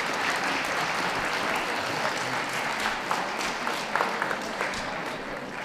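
Audience applauding: dense clapping that slowly fades toward the end.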